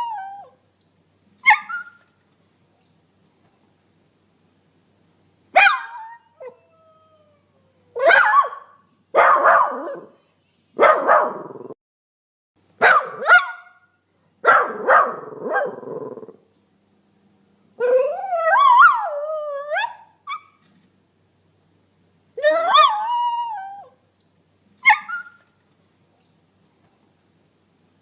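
Puppies barking and yipping in a string of about ten short, separate bursts with silent gaps between; a few calls are drawn out into whining howls with a wavering pitch.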